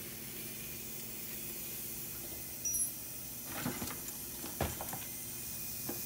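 Homemade refrigerant recovery pump running with a steady low hum while it draws R-134a refrigerant out of a refrigerator. A brief high metallic ping comes about two and a half seconds in, then a few clicks and knocks.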